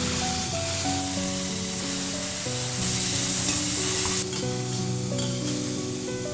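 Shredded pork sizzling in hot oil in a stainless steel pan as it is stir-fried, with the spatula stirring and scraping through it. Background music plays underneath.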